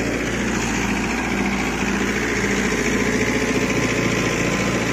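Mahindra Yuvo 585 DI 4WD tractor's four-cylinder diesel engine running steadily under load at about 1800 rpm, driving a rotavator that churns through damp soil.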